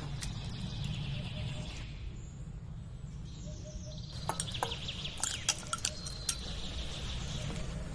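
Birds chirping over a steady low hum, with a handful of sharp clicks and clinks in the second half.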